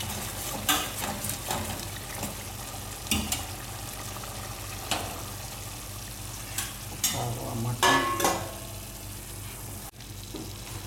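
Red chilli masala paste sizzling and bubbling in a frying pan on a gas flame, a steady hiss broken by scattered short crackles, several of them together near the end.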